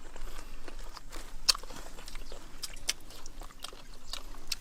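A person eating steamed cow head meat, chewing and biting with irregular sharp mouth clicks.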